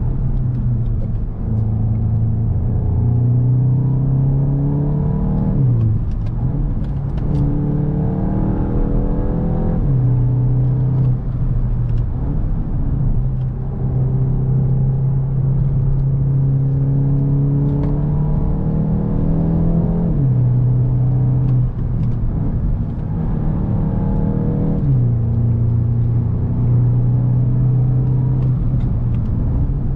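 2021 Volkswagen Golf GTI Mk8 with its turbocharged 2.0 TSI four-cylinder engine, driven under way. The engine note climbs and drops several times as the seven-speed DSG gearbox changes gear.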